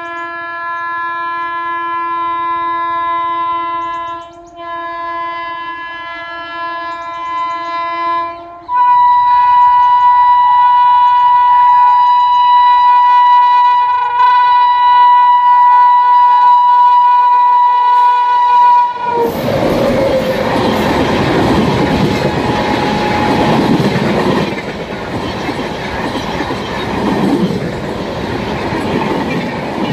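Indian Railways WAP7 electric locomotive's horn sounding a long, loud blast that steps up to a higher pitch about nine seconds in and holds until roughly 19 seconds. Then the locomotive and its express coaches rush past at speed, with clickety-clack over the rail joints.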